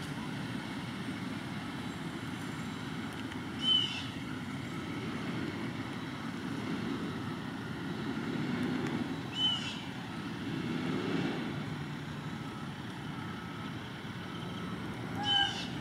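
A bird's short high call, given three times about six seconds apart, over a steady low background rumble.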